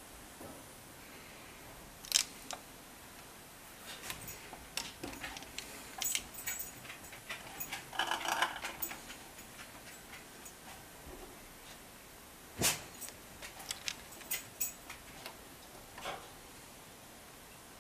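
Scattered clinks and knocks of hot glass canning jars being lifted from a pressure canner with a metal jar lifter and set down on a towel. There are two sharp, louder knocks, one about two seconds in and one past the middle, with a brief cluster of clatter in between.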